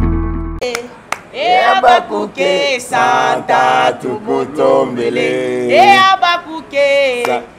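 An electronic intro jingle fades out in the first half second, then people sing together without accompaniment, in short phrases.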